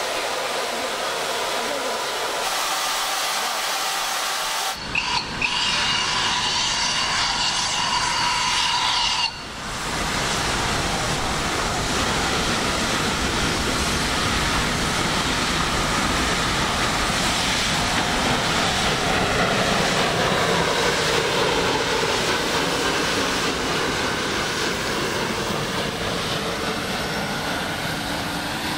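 HG/S steam locomotive working hard as it passes with a passenger train: exhaust and rolling train noise. Before that, near the start, a whistle sounds steadily for about four seconds.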